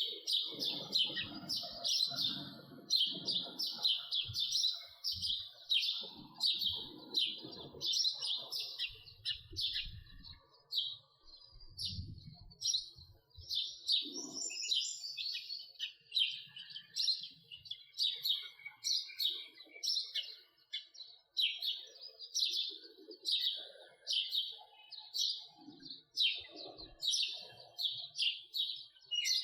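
House sparrow chirping over and over in short, high chirps, about two a second.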